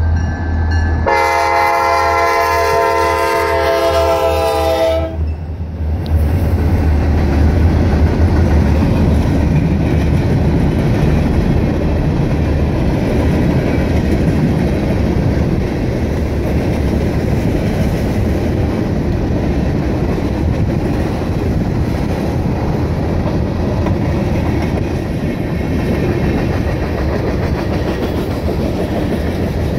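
Diesel freight locomotives pass, sounding one long blast of a several-note horn about a second in that lasts about four seconds, over the low rumble of the engines. Then a long train of tank cars rolls by with steady wheel-on-rail noise.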